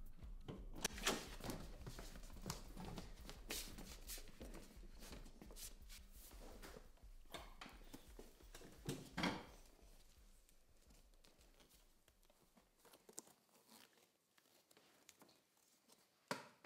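Faint rustling and scuffling of clothes and hands as a captive is handled and bound, with a few sharp knocks in the first ten seconds and a short rip of tape near the end as his wrists are taped.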